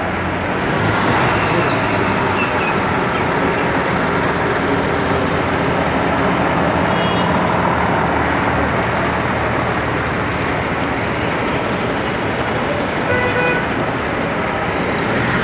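Steady rain falling on wet paving, mixed with the low hum of diesel coach engines running. A couple of brief high tones cut through, once about halfway and once near the end.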